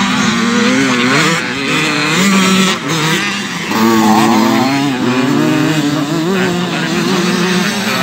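Several motocross bikes racing, their engines revving up and down in overlapping rising and falling pitches as the riders accelerate and shift.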